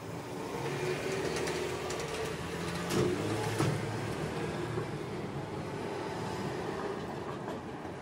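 A passing vehicle rumbling, swelling about half a second in and fading near the end, with two sharp clicks about midway.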